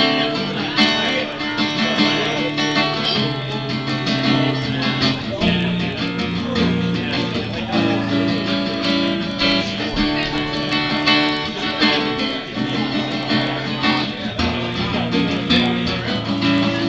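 Acoustic guitar strummed, with chords changing every second or two.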